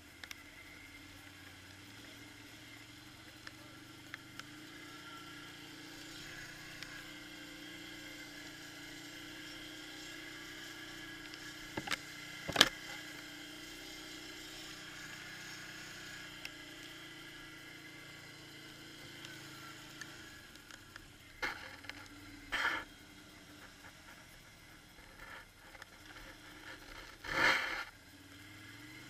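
Quad bike (ATV) engine running steadily while riding a rough, muddy track, with a few sharp knocks, the loudest about halfway through.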